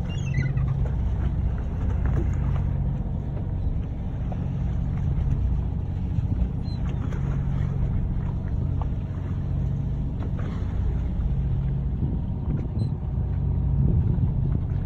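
Boat engine running at low speed, a steady low hum.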